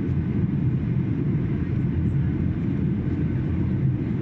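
Steady low cabin noise of a Boeing 737-800 in flight on its descent to land, heard from a window seat over the wing: engine and airflow noise that holds even throughout.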